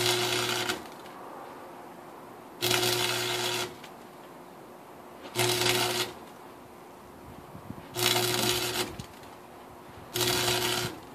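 Electric arc welder striking five short welds of about a second each, roughly every two and a half seconds: a crackling arc over a steady low electrical hum. Nuts are being welded onto the heads of sheared Torx main bearing cap bolts so the bolts can be turned out.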